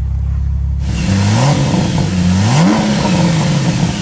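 Porsche 997.2 Turbo S's twin-turbo flat-six blipped through its exhaust, starting about a second in: twice the pitch climbs quickly and falls back toward idle.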